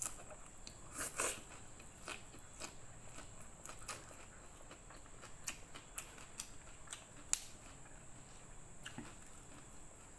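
Close-miked chewing of a mouthful of fried noodles and raw bok choy leaves, with irregular sharp clicks and crunches from the mouth; the loudest crunches come about a second in and again past the seven-second mark.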